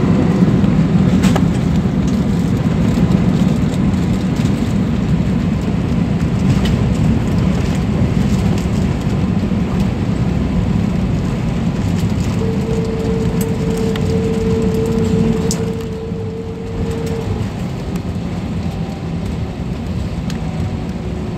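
Jet airliner cabin noise: a loud, steady rumble of engines and airflow. A steady hum comes in about twelve seconds in, and the overall noise drops a little a few seconds later.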